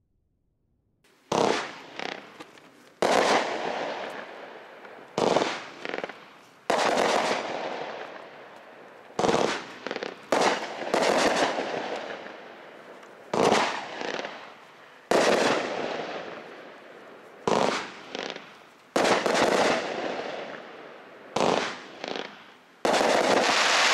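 American Pyro multi-shot fireworks cake firing, starting about a second in: a sharp report every one to two seconds, sometimes two in quick succession, each trailing off in a long fading rumble of the burst.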